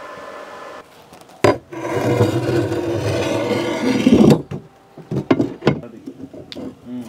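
Steel steering tube of a homemade boat being turned by its handle in its newly fitted ball bearings: a knock, then about three seconds of dry scraping rub, followed by a few light clicks and knocks.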